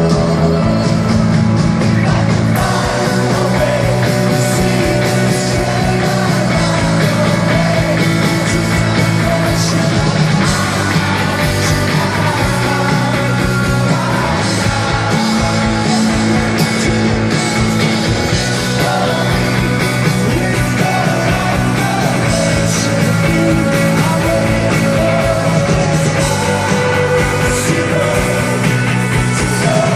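Indie rock band playing live, a singer over drums, bass and guitars, at a steady loudness.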